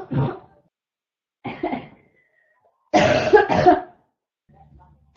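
A person's harsh barking cough in repeated fits: a short cough just after the start, a softer one about a second and a half in, and a loud double cough about three seconds in.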